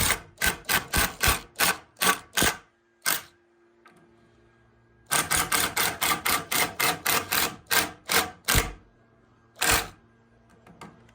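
Rapid, evenly spaced sharp clicks or taps, about three to four a second, in two runs with a pause of a second or two between them and a few single clicks after.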